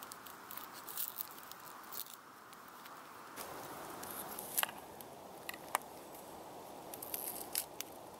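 Knife cutting and peeling an onion on a plastic chopping board: scattered crisp clicks and crunches over a steady background hiss.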